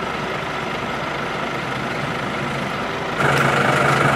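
Vehicle engine idling steadily; about three seconds in it gives way to a louder, steady engine hum with a high whine from a tow truck running beside its tilted loading bed.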